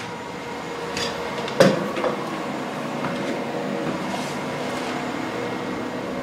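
Dell PowerEdge 2950 rack server running, its cooling fans giving a steady noise with a steady whine on top. A single knock about a second and a half in, with lighter clicks around it.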